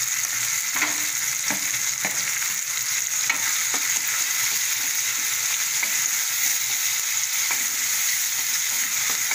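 Tomatoes, shallots and garlic frying in oil in a metal kadai: a steady sizzle while a wooden spatula stirs, knocking against the pan several times.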